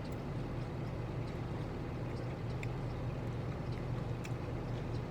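Steady low hum inside a truck's cab, typical of the truck idling, with a few faint clicks.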